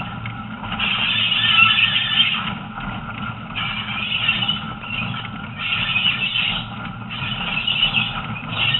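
Train running over a curving forest branch line: a steady low rumble from the wheels, with repeated high squeals that come and go every second or two as the wheel flanges grind against the rails on the curves.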